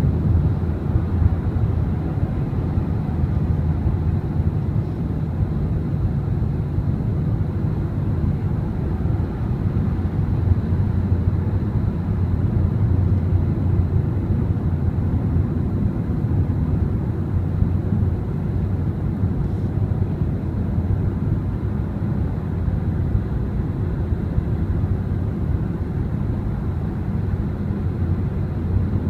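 Steady low rumble of a car cruising on a freeway: tyre and engine noise heard from inside the cabin.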